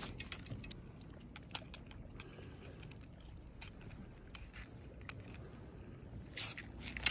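Metal fishing pliers working a lure's hooks free in a mesh landing net: scattered faint clicks and ticks of metal on metal, with light scraping and rustling of the net.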